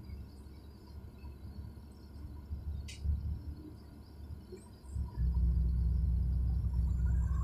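Low road and wind rumble of a moving vehicle, growing louder suddenly about five seconds in, with a single short click about three seconds in.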